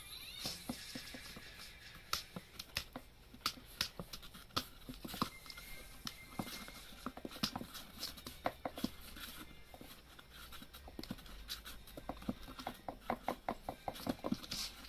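Kitten's claws scratching and tapping on cardboard in irregular taps, with a quicker run of taps near the end.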